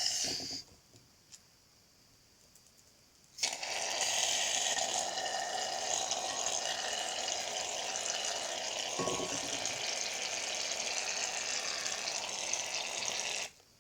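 Aerosol can of shaving foam spraying: a brief hiss that stops just after the start, then after a pause of about three seconds a long steady hiss of about ten seconds that cuts off suddenly near the end.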